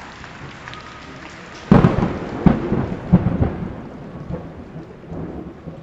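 Heavy rain falling steadily. Less than two seconds in, thunder breaks in suddenly and rolls on in several loud peaks before fading.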